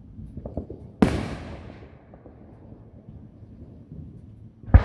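Fireworks going off: a few small pops, then a sharp boom about a second in that echoes away over the next second, and another, louder boom near the end.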